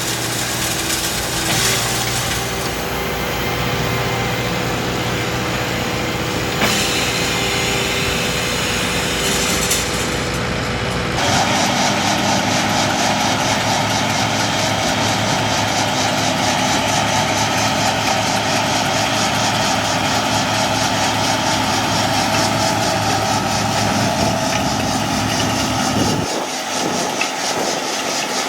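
Farm tractor engine running steadily under way in the field, its tone shifting abruptly about eleven seconds in and again near the end.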